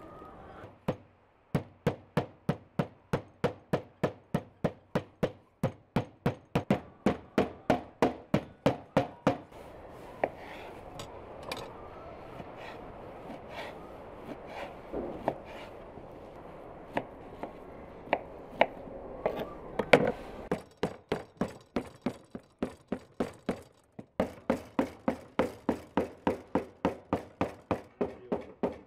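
Kitchen knife slicing sausage and meat on a wooden cutting board. Each stroke knocks sharply on the board at a steady pace of about three a second, with a sparser, uneven stretch in the middle.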